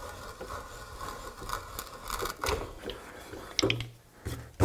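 Hand brace and auger bit boring through a wooden board, the bit's cutters crunching and tearing through the wood fibres as the brace is cranked. A few sharp clicks come near the end as the brace is lifted clear.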